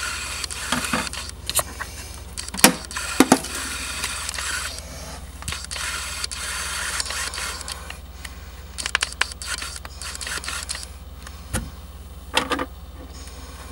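Scraping and crackling with several sharp clicks and knocks, as hands pick and scrape at a freshly finished plastic 3D print. A steady low hum runs underneath.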